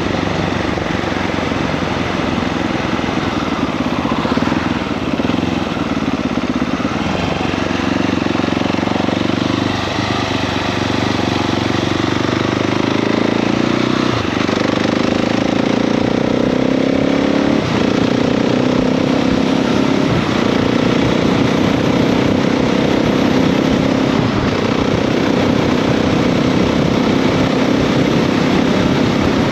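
KTM 690 SMC R single-cylinder engine pulling up through the gears, with short breaks in the engine note at each shift, about 10, 14 and 17 seconds in. It then runs at a steadier speed, over constant wind rush.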